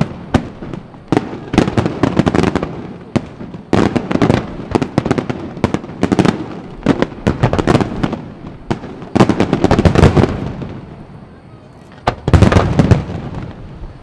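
Aerial fireworks display shells bursting in rapid volleys, many sharp bangs close together with a short lull before a loud volley near the end.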